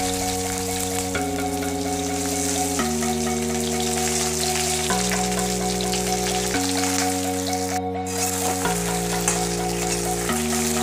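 Okra pieces sizzling and crackling as they fry in hot oil in a kadai, with a spatula stirring them near the end. The sizzle briefly cuts out a little before eight seconds in. Electronic background music with held chords that change every second or two plays underneath.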